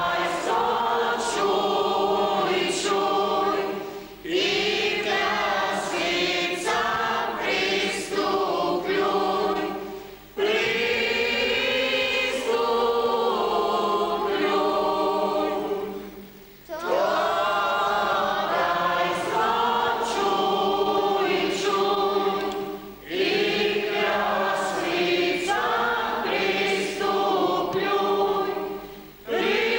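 Church congregation of men and women singing a hymn together, in phrases of about six seconds with short breaks between them.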